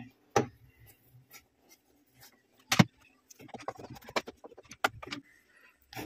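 Sharp clicks and a run of light taps and clinks as a screwdriver works the screws out of the plastic housing around a washing machine's water inlet valve; the loudest click comes nearly three seconds in.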